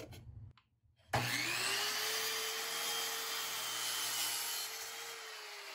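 Ryobi sliding compound miter saw starting about a second in, its motor spinning up to a steady pitch as the blade crosscuts a one-by board. About five seconds in the trigger is let go and the pitch starts to fall as the blade spins down.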